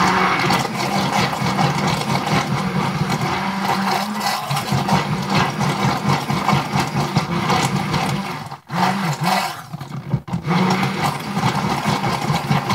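Stick blender motor running with its blade down in soap batter in a plastic jug, a steady whir, switched off for a moment twice about nine and ten seconds in.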